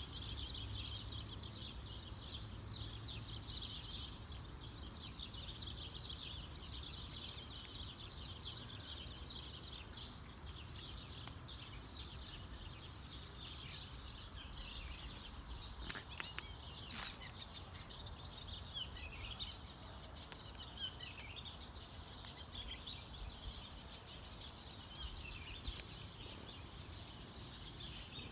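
Small birds chirping in a dense, continuous chorus over a low rumble, with a few sharp clicks about halfway through.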